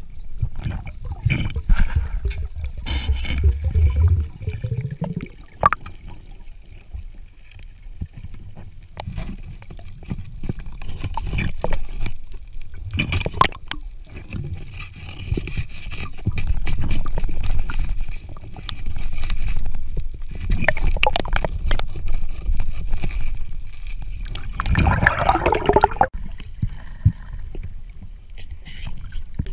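Underwater sound of a diver working a rock hole: water gurgling and rushing, with scattered sharp clicks and scrapes as a gloved hand and a thin metal rod probe the rock and sand, and a louder rushing burst near the end.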